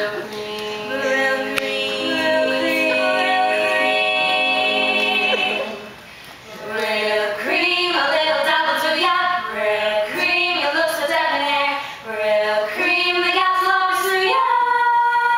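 A small vocal group, led by female voices, singing unaccompanied in close harmony. Long held chords come first; after a short break about six seconds in, the phrases turn to shorter notes, and the group ends on a long held note.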